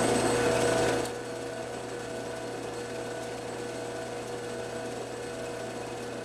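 Drill press motor running with a steady hum; it drops in level about a second in and runs on.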